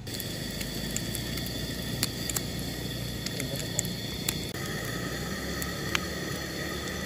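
Propane camp stove burner hissing steadily while it heats, with a few sharp pops or clicks scattered through it.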